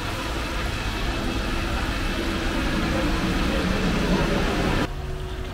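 Battered fish roe deep-frying in a large pan of hot oil: a steady, loud bubbling sizzle over a low hum. The sizzle stops abruptly near the end.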